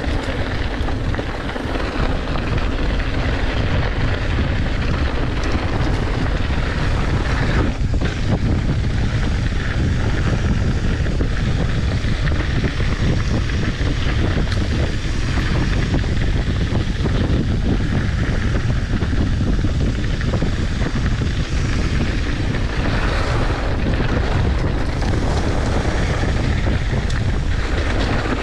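Wind buffeting the microphone of a camera on a mountain bike riding down a dirt trail: a steady low rush, with the tyres rolling over the ground beneath it.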